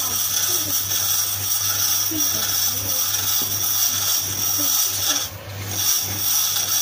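Wood turning on a homemade lathe: a hand-held chisel cutting into a spinning block of wood as it is shaped into a spinning top, a continuous scraping hiss over the lathe's steady hum. The cutting eases for about half a second around five seconds in, then resumes.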